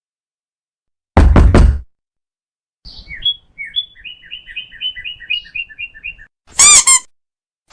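Cartoon-style comedy sound effects: a quick burst of loud knocks, then a run of short bird-like chirps at about four a second, ending in a loud, short, high-pitched squeak near the end.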